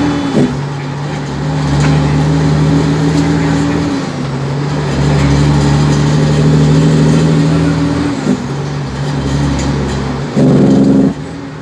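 Cummins N14 diesel engine of a dump truck running under way, heard from inside the cab at a steady pitch that shifts down and back up a couple of times, with a louder surge about ten seconds in.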